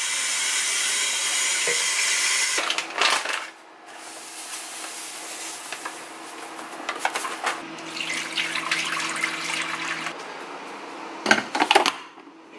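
Kitchen faucet running water into the sink for about two and a half seconds, then shut off. Clatter and rustling follow as coffee grounds are poured into a drip coffee maker, with a few sharp clicks near the end.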